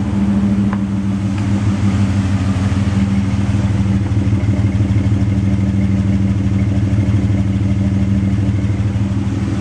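Exhaust of a Ford Escape's 3.0 L V6 idling steadily at the tailpipe, a fast low pulsing; the engine has a rough idle.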